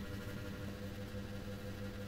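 A steady low hum made of several held tones, unchanging throughout.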